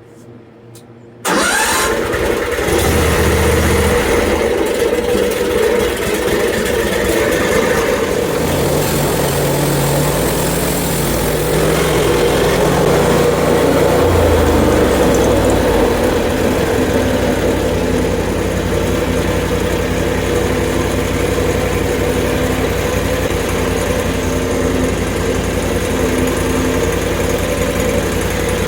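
Portable bandsaw sawmill's gas engine comes in suddenly about a second in and runs loudly. Its pitch shifts up and down over the next dozen seconds, then it settles into steady running.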